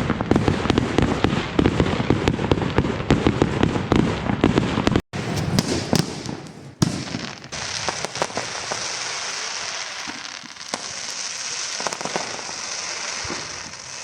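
Fireworks bursting: a dense, continuous run of cracks and bangs for about five seconds. After a brief break, scattered pops and crackles sound over a steady high hiss.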